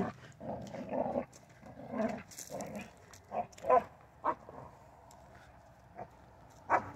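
Rottweiler puppy playing with a long stick: a string of short, separate sounds, brief growls mixed with the stick knocking and scraping on the grass and gravel.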